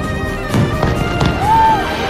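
Aerial fireworks shells bursting, several sharp reports in the first part, over continuous music.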